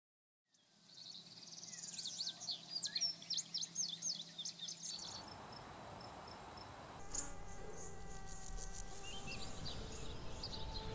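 Woodland ambience: insects keep up a steady high trill while birds chirp over it. About seven seconds in, faint steady tones join the background.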